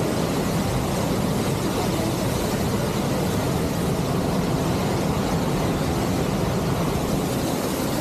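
Steady rushing roar of waterfalls and churning river water, with no change in level.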